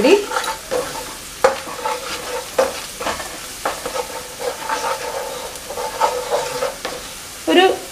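Wooden spatula stirring sliced onions, green chillies and curry leaves frying in oil in a non-stick pan, with a soft sizzle under irregular scrapes and knocks of the spatula against the pan.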